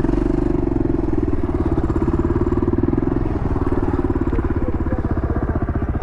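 Quad (ATV) engine running steadily with a fast, even pulse; it is a little quieter after about three and a half seconds.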